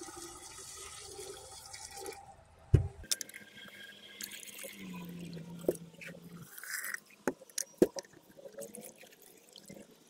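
Hot water poured from an electric kettle into a glass beaker of connector pins, a steady splashing pour lasting about two seconds. Then a single knock and scattered small clicks and splashes.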